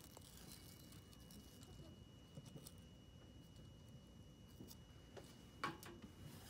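Near silence with a few faint clicks and one sharp click about five and a half seconds in, from a hand handling a clear plastic toothpick container.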